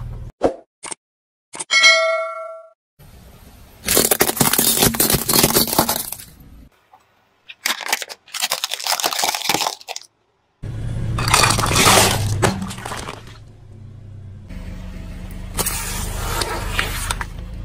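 Car tyre crushing objects in several separate bursts of cracking and crunching, among them plastic toy cars snapping under the wheel. A short bell-like ding rings about two seconds in.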